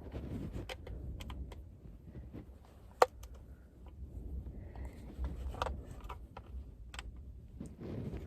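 Irregular small clicks and scrapes of plastic as a car's interior roof light unit is pried out at its corners, with one sharp click about three seconds in.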